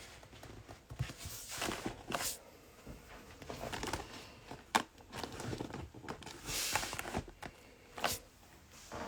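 Close handling noises: scattered sharp clicks and brief rustles, like things being moved and packaging being handled on a table.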